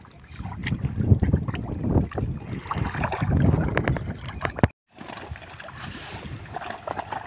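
Pond water sloshing and swirling around a man wading waist-deep through weeds, with wind rumbling on the microphone and small splashes and clicks. The sound cuts out completely for a moment just before five seconds in, then returns as a steadier, quieter wash.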